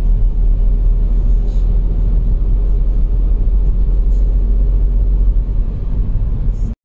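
A car driving, heard from inside its cabin: a steady low rumble of engine and road noise.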